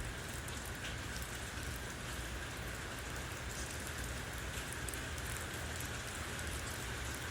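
Heavy rain falling steadily, a constant hiss with scattered drop hits.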